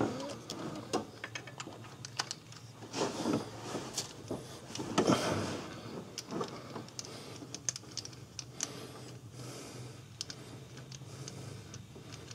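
Irregular small metal clicks and scrapes as a new timing belt idler and its bolt are fitted onto the engine, over a faint steady low hum.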